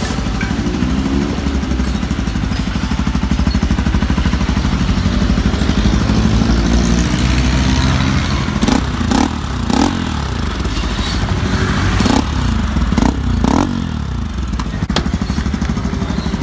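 RS200 motorcycle's single-cylinder engine running through a cheap aftermarket MT8 muffler made for a Honda Click, giving an open, de-baffled 'kalkal' exhaust note. It idles steadily for the first half, then takes about six quick throttle blips from about halfway through before settling back to idle.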